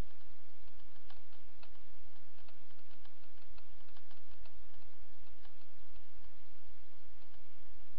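Steady low electrical hum under an even hiss, with faint, irregular ticks or clicks scattered through the first five seconds or so.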